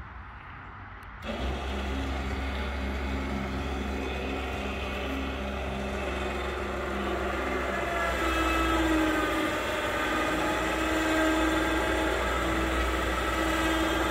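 Electric winch in a pickup bed starting about a second in and running steadily, a motor whine over a low hum, as it reels in its line under load. Its pitch shifts higher about eight seconds in.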